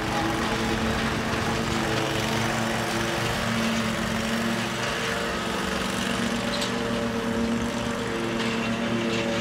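Hustler zero-turn ride-on mower running steadily as it mows grass, the engine note shifting slightly in pitch about halfway through.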